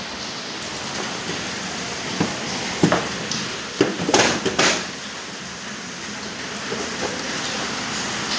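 Handling knocks and clicks from a Gree split air conditioner's indoor unit being fitted onto its wall mounting plate, several close together around the middle, over a steady hiss.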